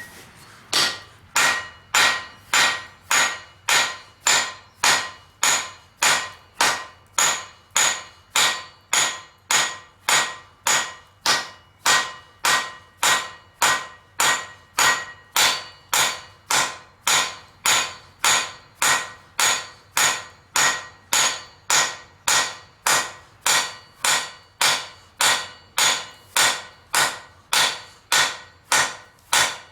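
Hand hammer forging steel on an anvil: a steady rhythm of blows, just under two a second, each with a bright metallic ring.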